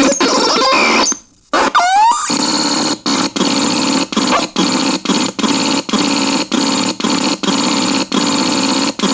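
Synthesizer playing a harsh, noisy buzzing tone. About a second in it cuts out briefly and comes back with quick rising pitch sweeps. After that the tone is chopped on and off in a steady rhythm, about two to three times a second.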